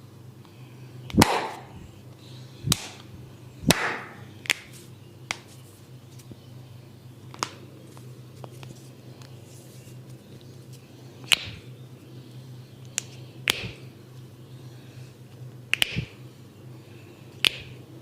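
Sharp slaps and clicks of a barber's hands during a head and neck massage: about a dozen short strikes at irregular intervals.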